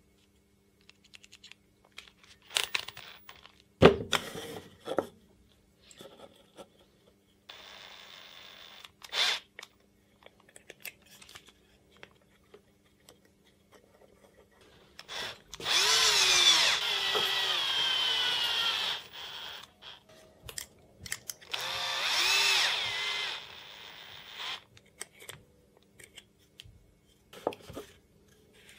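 Cordless drill run twice for about three seconds each, its motor pitch rising and falling with the trigger, with a fainter shorter run before. Sharp knocks and clatter of the small wooden blocks being handled fall in between.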